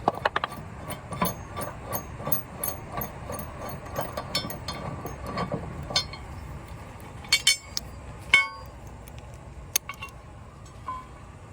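Hand tools working on a mower blade and deck: a quick run of metal clicks for about six seconds, then a few separate sharp metal clinks that ring briefly.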